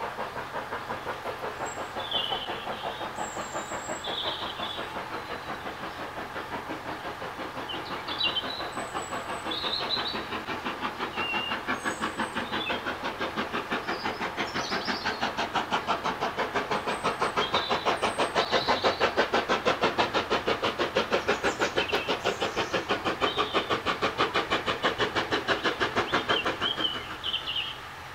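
Steam locomotive approaching with a fast, even chuffing of its exhaust beats, growing louder as it nears, then cutting off suddenly about a second before the end.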